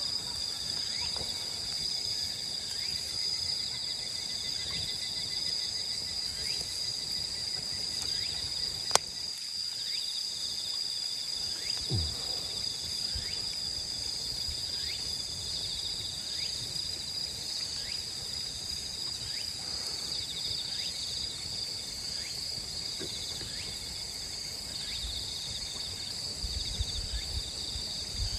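A steady chorus of crickets and other insects chirping, with a single sharp click about nine seconds in.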